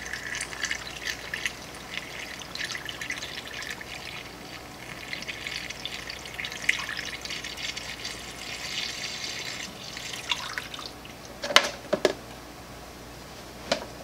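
Coolant pouring from a plastic container through a funnel into a car's coolant expansion tank, a steady splashing trickle that stops about ten seconds in. A few sharp knocks follow near the end.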